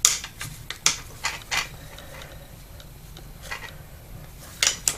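Metal worm-drive hose clamps on rubber transmission hoses clicking and clinking as the hoses are handled: a sharp click at the start, a few more over the next two seconds, and a quick pair near the end.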